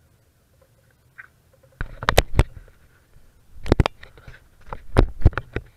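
Close handling noise on the camera: sharp knocks and clicks in irregular clusters, starting about two seconds in, much louder than the quiet before them.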